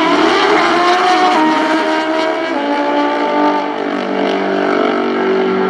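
Two nitrous-injected drag-racing motorcycles at full throttle down the track, their engine notes climbing in pitch in steps as they pull through the gears. About two and a half seconds in the pitch drops and settles into steadier tones as the run ends and they come off the throttle.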